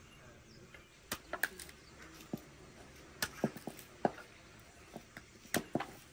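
Knife cutting raw pumpkin wedges on a metal tray: irregular sharp clicks and knocks as the blade goes through the firm flesh and meets the tray, with a spoon scraping out seeds and strings.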